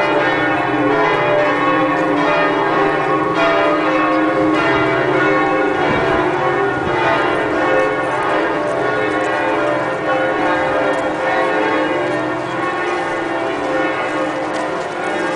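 The bells of Notre-Dame de Paris cathedral pealing together: many overlapping bell tones ringing on in one continuous loud wash.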